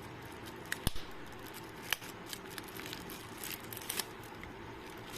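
Scattered small clicks and light handling noises over a low steady background, the sharpest clicks about one and two seconds in.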